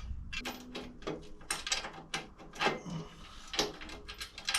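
Irregular metallic clicks and clinks of a hand tool working a motorcycle exhaust clamp, about a dozen short knocks, some of them ringing briefly.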